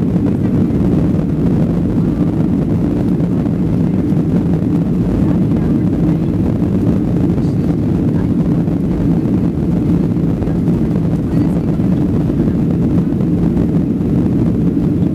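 Boeing 737-800 jet engines running steadily at low taxi power, heard inside the cabin as a loud, even low hum with a few steady low tones.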